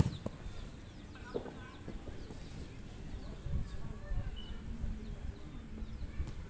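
A futsal ball is struck on an artificial-turf pitch, a sharp kick right at the start and a lighter one about a second and a half in, amid the dull thuds of players' feet. Faint bird chirps are in the background.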